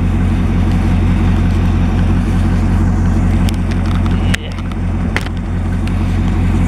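1959 Edsel Ranger's 292 V8 idling steadily as it warms up; the owner says it has an exhaust leak. A few sharp clicks come about halfway through.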